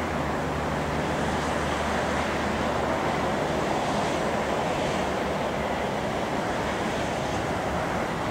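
Steady street traffic noise from cars and a W-class tram moving slowly along in the traffic, with a low engine hum that fades out a few seconds in.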